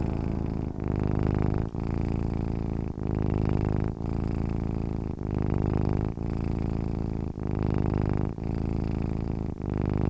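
Domestic cat purring steadily, in cycles of about a second each, with a brief break between breaths.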